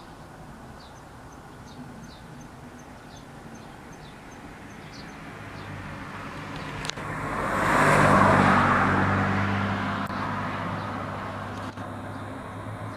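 A car passing by, growing to its loudest about eight seconds in and then fading, with a steady low engine hum left after it. Short high chirps repeat about twice a second in the first few seconds.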